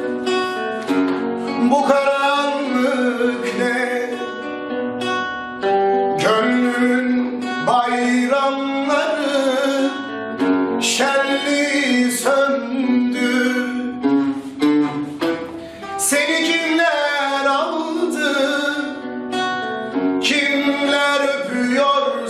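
Turkish pop-folk song playing: acoustic guitar under a gliding melody line.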